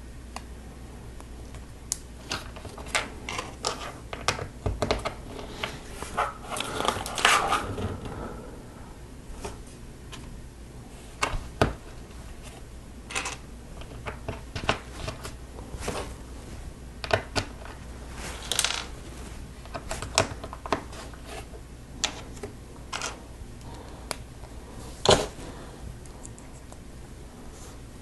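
Plastic Lego Technic pieces being handled and pressed together, with irregular sharp clicks and small knocks, and a rustle of loose parts about six to eight seconds in.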